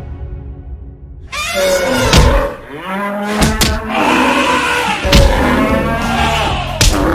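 Bull bellowing and lowing sound effects, repeated in long bending calls, broken by a few heavy thuds as the animals clash.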